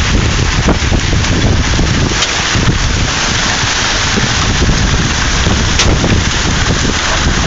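Heavy rain and marble-sized hail pelting down in a severe thunderstorm, with strong wind buffeting the microphone. A few sharp clicks of hailstones striking stand out, the clearest about six seconds in.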